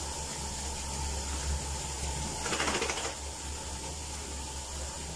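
Lathered dog being scrubbed with a bath puff: a brief rough, rustling burst of scrubbing about two and a half seconds in, over a steady low hum.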